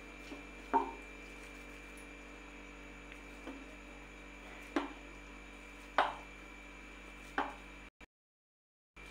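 Small lumps of soft dough dropped one at a time onto a steel plate: five short knocks spread over several seconds, over a steady faint hum. The sound cuts out for about a second near the end.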